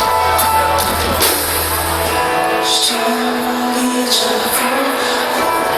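Live pop music: sustained instrumental notes, with a deep bass note that stops about two seconds in and a held higher note from about three seconds in.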